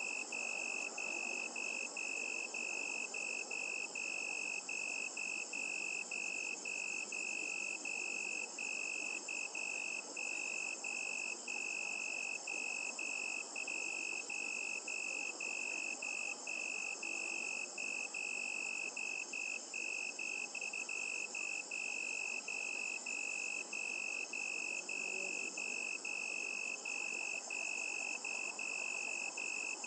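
Crickets calling at night: a steady high-pitched trill that breaks off briefly about twice a second, over a faint background hiss.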